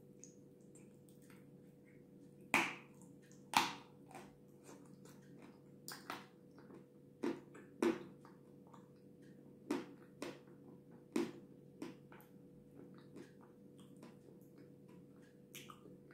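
Close-up mouth eating sounds: wet lip smacks and soft chewing of creamy cake, in scattered sharp smacks every second or so. A faint steady hum runs underneath.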